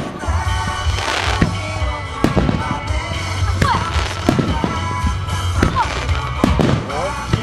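Aerial fireworks bursting in a rapid, uneven series of bangs over music.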